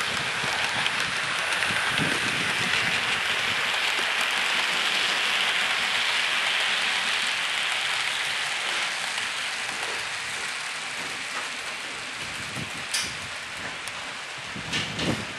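Model trains running on a layout: the steady rushing hiss of their wheels on the rails and their motors, easing off after about nine seconds as they move away, with a few sharp clicks near the end.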